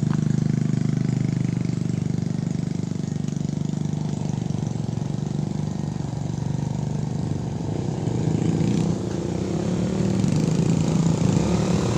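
Small motorcycle engine running steadily at low revs. It grows louder over the last few seconds.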